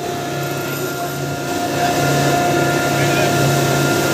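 Fishing boat under way at speed: a steady engine drone with the rush of the hull and wake spray, growing a little louder about halfway through.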